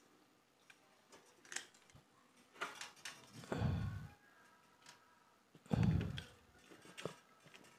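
Hand pop-rivet gun squeezed repeatedly to set a rivet through a copper plate into an aluminium boom. It gives a series of sharp metallic clicks, with two heavier dull clunks about three and a half and six seconds in.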